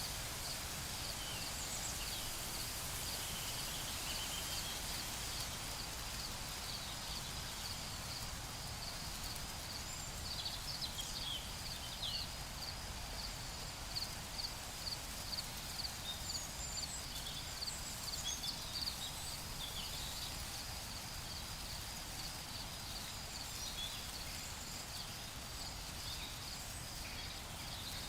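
Forest ambience: a continuous, pulsing high-pitched trill, with scattered short bird chirps over a low steady rumble.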